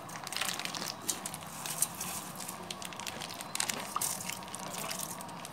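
Thick yogurt squelching and plopping as it is tipped out of its container into a steel pot, heard as a run of short crackly clicks and splats.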